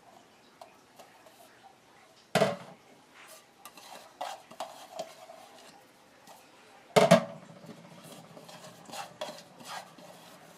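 A kitchen utensil clinking and scraping in a glass mixing bowl as grated cassava and coconut are worked together, with small scattered clicks and two louder knocks, about two seconds in and again about seven seconds in.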